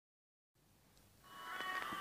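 Silence, then the instrumental opening of a song fading in just over a second in, with steady held notes growing louder.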